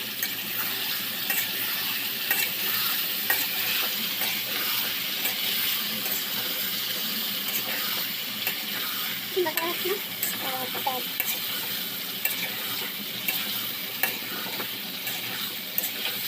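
Chicken frying and sizzling in a pan while it is stirred, with frequent sharp ticks of the spatula against the pan.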